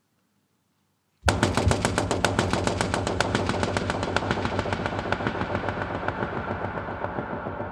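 A rapid run of sharp knocks, several a second, starting suddenly about a second in and slowly fading.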